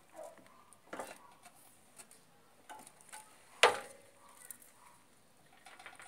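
A sheet-metal hand brake and enamelled galvanized steel sheet clicking and knocking as the sheet is set and bent, with one sharp metallic clank about three and a half seconds in that rings briefly.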